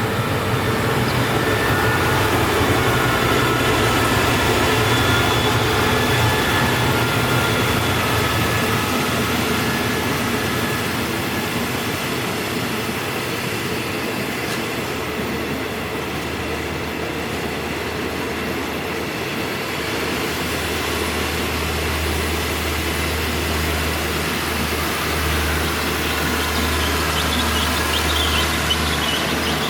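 Diesel-hauled passenger train running on the rails, a steady rumble with faint high wheel squeal. A low drone grows stronger about two-thirds of the way through.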